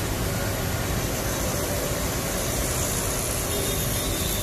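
Steady low rumble of an idling engine under an even background hiss.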